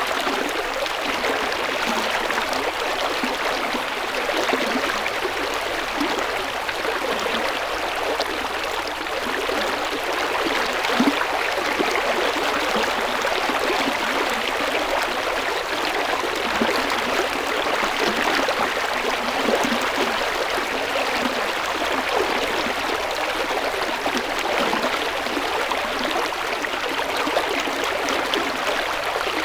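River or stream water flowing and splashing steadily over rocks, an even rushing with small gurgles and no pause.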